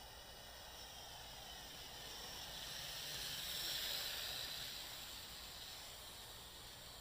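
Small toy quadcopter's motors and propellers whining, with several high tones that bend in pitch. It grows louder to a peak about four seconds in and then fades, as the quad flies close and away again.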